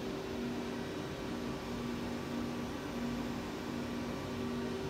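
Steady machine hum of a powered-up CNC turning center standing idle: an even drone with two steady tones, the lower one pulsing on and off at a regular short interval.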